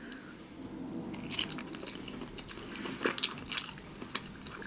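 A person chewing food close to the microphone, with wet mouth sounds and a few short crunchy bites.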